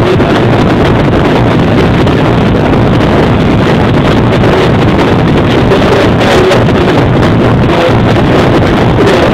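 Club music from a DJ set on CDJ decks, played loud over a sound system. It is recorded so loud that it comes through distorted as a dense, unbroken wall of sound.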